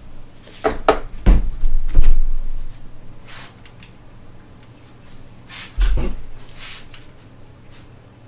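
Tools and transmission parts knocking and clunking, a quick series of knocks in the first two seconds and another heavy thump near six seconds, with short scraping sounds between, as a manual transmission is worked on by hand.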